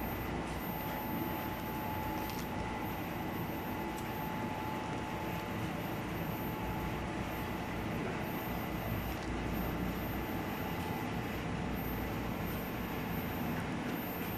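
Steady hum of factory machinery running, with a faint constant whine over a low rumble and a few faint clicks.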